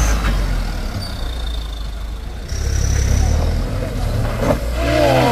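Isuzu box truck's diesel engine running with a low, heavy rumble as it drives slowly past close by on a rough dirt road. A thin high squeal comes and goes twice. A voice calls briefly near the end.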